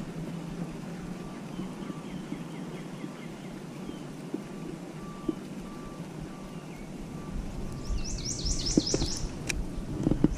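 Steady low hum of an electric trolling motor. Near the end a bird sings a quick trill of about eight high notes, and a couple of sharp knocks come just after.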